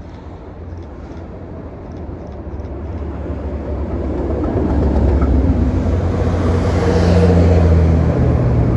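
Class 37 diesel-electric locomotives running under power on a railhead treatment train. The engine drone and the rail noise grow steadily louder as the train approaches, and are loudest as it passes close by in the second half.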